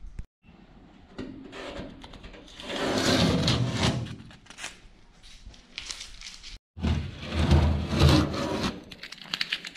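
Blue painter's tape being peeled off a freshly painted metal boat hull: two stretches of rustling, tearing and scraping, about three seconds in and again about seven to eight seconds in.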